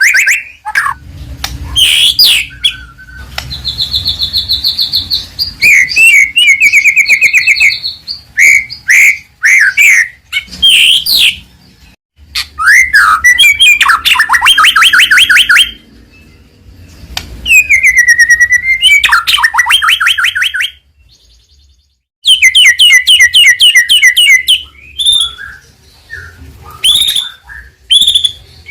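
White-rumped shama singing loudly in a long, varied run of phrases: swooping whistles, fast rattling trills and chattering notes, broken by a few short pauses. This is the full, continuous song of a bird in top form.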